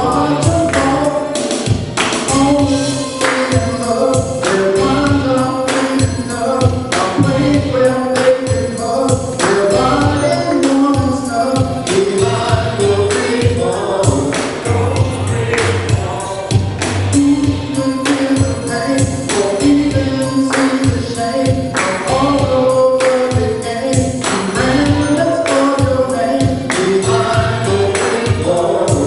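Gospel song: choir-style voices singing over a steady beat with tambourine.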